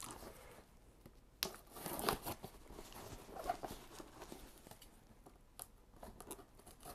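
Knife slitting the packing tape on a cardboard parcel: faint scratching and scraping with a few sharp clicks.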